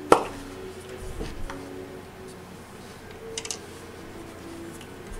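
Snap-on lid of a plastic 35 mm film canister popping off, one sharp pop right at the start. Faint clicks follow as the canister and film cartridge are handled.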